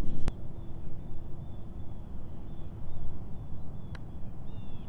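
Putter striking a golf ball once, a sharp click, with a fainter tick near the end. Faint bird chirps sound over a low wind rumble on the microphone.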